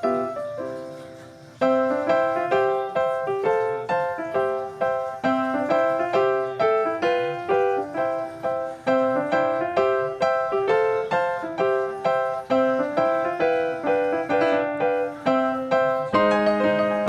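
Background piano music: a steady run of plucked-sounding piano notes, a few a second, pausing briefly about a second and a half in.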